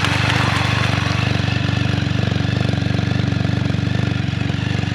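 Can-Am Spyder F3s's Rotax 1330 ACE inline three-cylinder engine idling steadily through its exhaust, with an even, rapid pulse.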